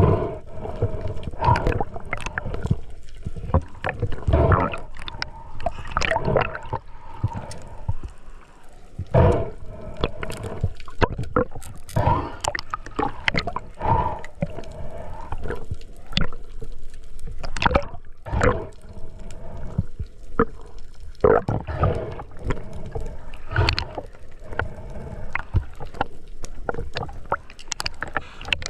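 Water gurgling and sloshing around a camera held in the sea, in irregular splashy bursts over a faint steady hum.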